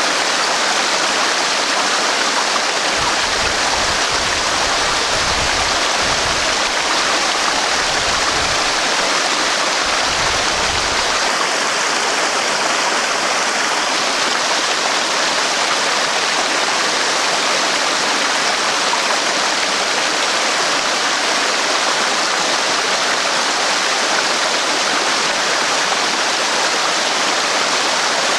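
Waterfall: water falling and splashing in a steady, dense rush, with a low rumble underneath for several seconds in the first half.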